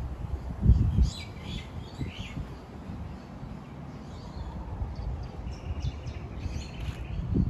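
Birds calling outdoors over a steady low rumble, with a loud low thump about a second in.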